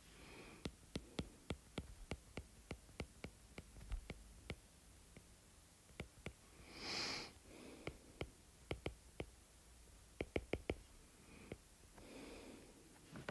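Stylus tip tapping and clicking on a tablet's glass screen during handwriting: irregular runs of sharp ticks, with a short breathy hiss about halfway through.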